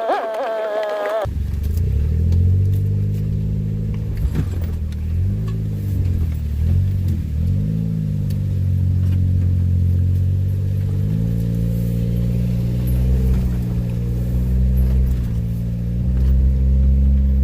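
Music for about the first second, then a vehicle engine running. Its pitch dips and rises several times as it slows and picks up again, then it settles into a steady run with a small step up in speed past the middle.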